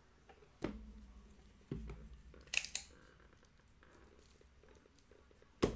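A shrink-wrapped trading-card hobby box being handled, with two dull knocks, then a utility knife slitting the plastic shrink wrap with a short scratchy rip about two and a half seconds in. A sharp knock comes near the end.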